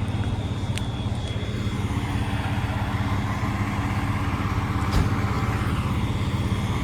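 Fire truck's diesel engine idling steadily, with two short clicks, one about a second in and another about four seconds later.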